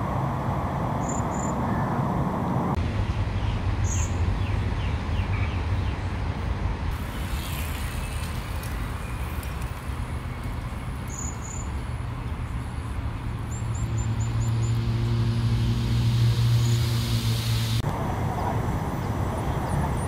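Outdoor traffic rumble from nearby roads, with an engine hum swelling louder a little after halfway and fading again near the end, and a few short, high bird chirps.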